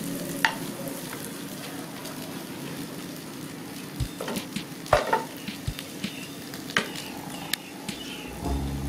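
Egg and bell pepper rings sizzling steadily in a non-stick frying pan, while a wooden spatula scrapes and taps against the pan several times, loudest about five seconds in.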